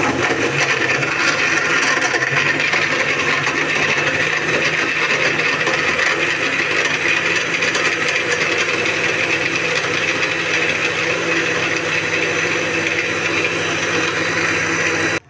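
Xtreme electric juicer-blender motor running steadily at full speed, blending a milk and strawberry shake in its glass jar. It starts abruptly and cuts off near the end.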